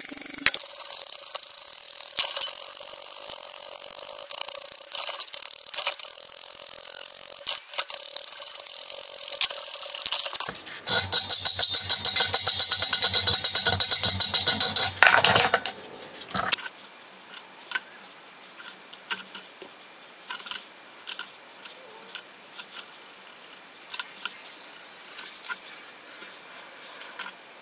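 Hand file rasping across the edge of a steel knife blank held in a bench vise, in repeated strokes, loudest and most continuous about eleven to fifteen seconds in. After that it gives way to a quiet stretch with scattered light clicks and taps.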